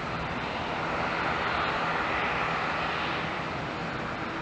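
Airbus A380's four Rolls-Royce Trent 972 turbofans on final approach: a steady jet rush over a low rumble, swelling a little about two seconds in.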